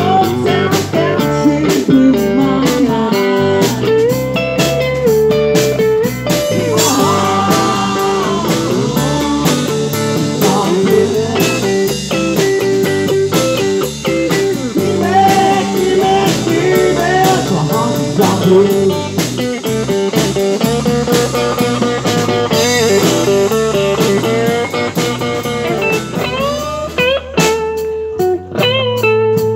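Live blues-rock band playing an instrumental passage on electric guitars and drum kit, the guitar notes sliding and bending. The playing thins out near the end.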